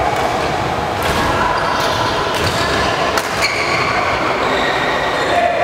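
Badminton play in a large sports hall: a few sharp knocks of rackets and shuttlecock and footfalls on the wooden court, over a steady background hum, with hall echo.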